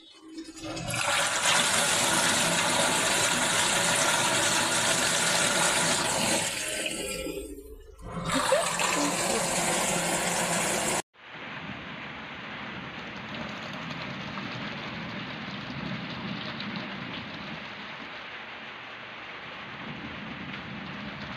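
Water rushing in a small washing machine tub, loud and steady for about ten seconds with a brief dip partway. It cuts off abruptly and gives way to a quieter, duller steady whooshing of water.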